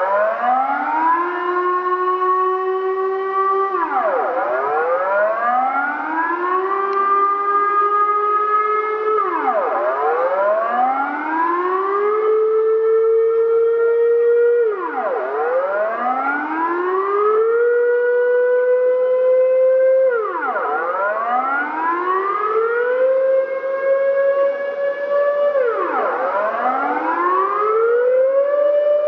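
Dutch civil defence air raid siren sounding the monthly noon test signal: a loud wailing tone that rises, holds and then drops, about once every five and a half seconds, the held pitch creeping a little higher with each cycle.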